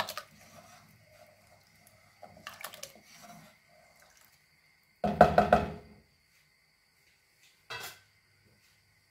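A spoon knocking and scraping against the inside of a pressure cooker while rice and mushrooms in water are stirred. About five seconds in comes a loud burst of quick knocks lasting under a second, with a shorter one near eight seconds.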